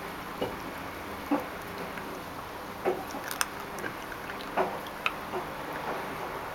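A Labrador puppy gnawing on a raw chicken leg bone, with irregular sharp crunches about every second.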